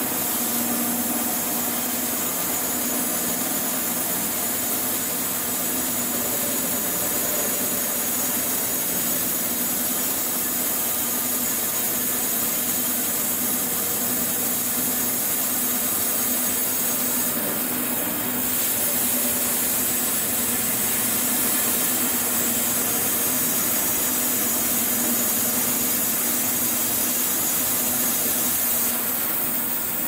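Rhino 700 band sawmill's blade cutting through abrasive cement bricks: a steady, harsh rasping noise over a low steady hum, getting slightly louder a little past halfway through.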